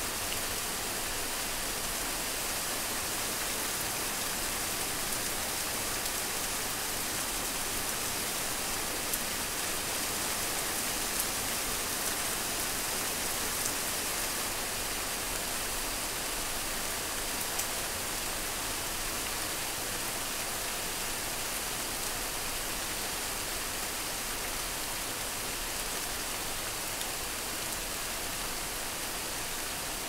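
Heavy rain falling steadily: a dense, even hiss of drops on hard, wet surfaces, with a few sharper drop taps.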